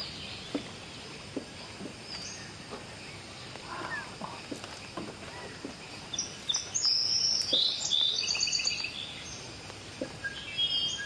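Birds calling: a rapid burst of short, high chattering notes from about six and a half to nine seconds in, with a few more near the end, over a steady background hiss and scattered faint clicks.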